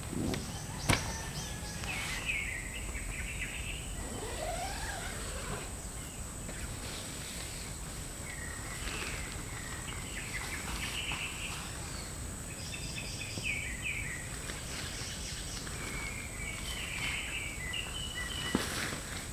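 Outdoor countryside ambience: birds chirping in short repeated calls over a steady high-pitched whine, with a couple of sharp knocks, one about a second in and one near the end.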